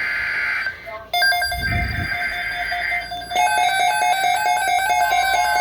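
Emergency Alert System alert tones for a severe thunderstorm watch relay: after about a second of hiss, electronic tones start abruptly and turn into a fast repeating two-pitch beeping.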